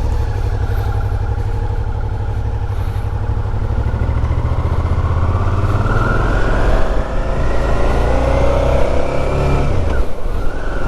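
Suzuki V-Strom 650 motorcycle's V-twin engine under way, its note climbing steadily as it accelerates, then dropping sharply near the end at a gear change. A heavy low rumble of wind and road noise runs underneath.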